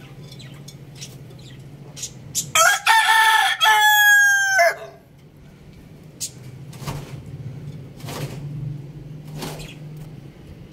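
A rooster crowing once, about two seconds long, starting a couple of seconds in and ending on a long held note.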